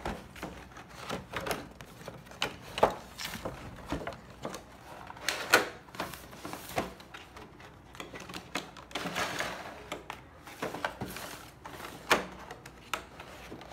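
A cardboard toy box with a clear plastic window being handled and turned over by hand: irregular taps, knocks and crinkly rustles of cardboard and plastic.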